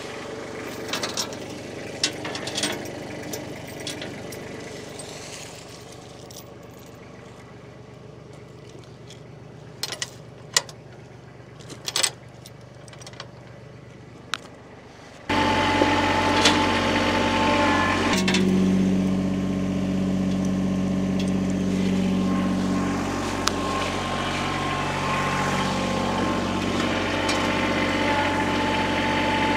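Truck engine running steadily at idle. For about the first half it is faint, with a few sharp clanks over it. Then it abruptly becomes much louder and closer for the rest.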